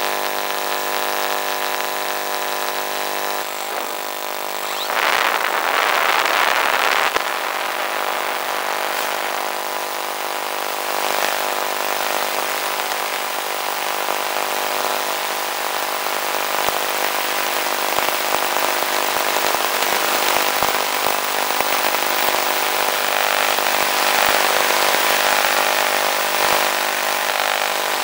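Electric motor and propeller of an FPV model plane running steadily, a buzz of many steady tones, with a louder rushing noise for about two seconds some five seconds in.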